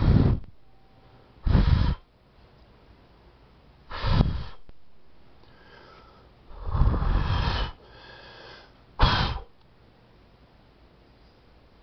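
A person close to the microphone letting out about five short, loud, breathy bursts of air, with quiet gaps between them.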